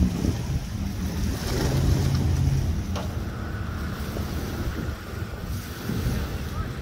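Wind buffeting the microphone over a low engine rumble, with a single sharp click about three seconds in and a faint steady whine after it.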